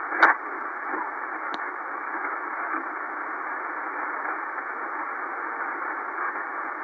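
Shortwave static from an XHDATA D-808 receiver's speaker, tuned to 6676 kHz in single-sideband mode with no voice coming through: a steady narrow-band hiss. Two sharp clicks of static come in the first two seconds, the first the loudest.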